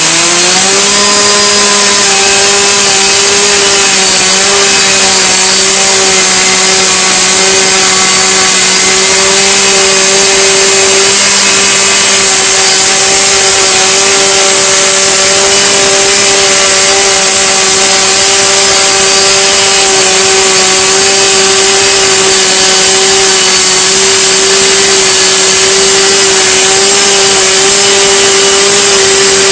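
Two-stroke chainsaw engine running at high revs, its pitch climbing in the first second and then held steady and loud throughout.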